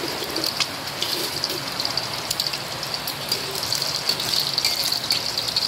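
Egg frying in hot oil in a wok: a steady sizzle with scattered crackles and pops of spattering oil.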